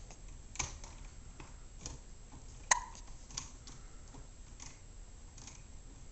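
A baby hiccupping: short, sharp hics one to two seconds apart, the loudest near the middle.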